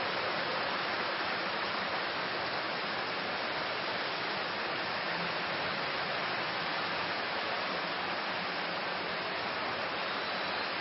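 Steady, even hiss of background noise with nothing else over it.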